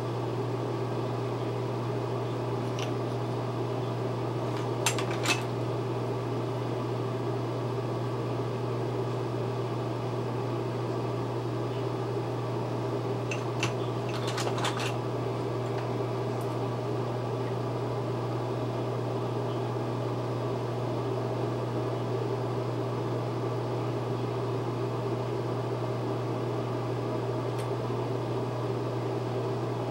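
Steady machine hum, even and unchanging, like a room's exhaust fan or appliance motor. A few light clicks about five seconds in and again around fourteen seconds.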